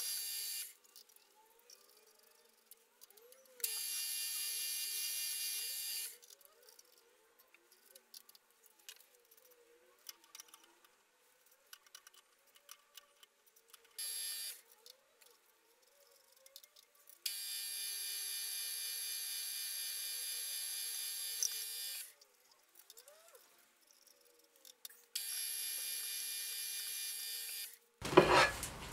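Milling machine spindle motor running with a steady high whine while drilling holes in a metal plate. It comes in five runs of one to five seconds each, separated by near-silent gaps. Near the end there is a short, louder clatter of handling.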